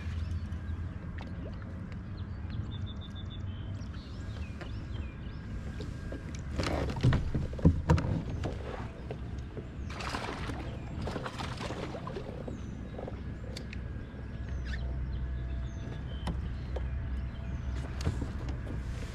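Knocks and rustling on a plastic fishing kayak as the angler shifts from standing to sitting, the loudest a cluster of knocks about seven seconds in, over a low steady rumble. A few short high chirps come and go.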